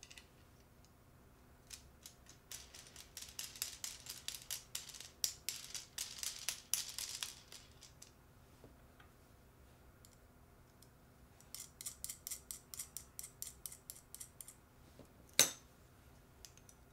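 Small wooden block being screwed along a long threaded metal rod, its threads ticking in two runs of rapid clicks. A single sharp knock near the end, the loudest sound.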